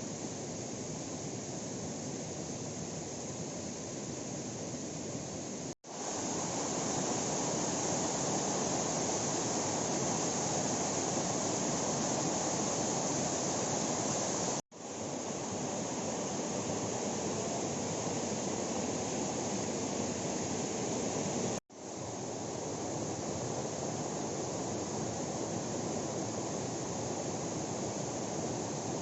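Steady rush of falling water, broken three times by a sudden, very short drop to silence, with the tone shifting a little after each drop.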